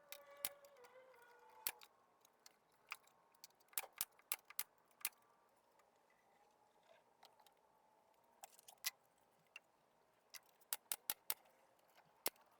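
Sparse, irregular light clicks and taps of hands and tools working wooden pieces, some in quick clusters of three or four.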